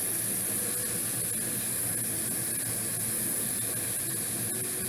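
Steak and vegetables sizzling on a Tayama electric indoor grill: a steady, high hiss.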